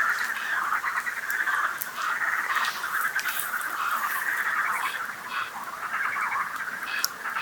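Dense chorus of many frogs croaking without a break, with scattered sharp pops and crackles from a wood campfire.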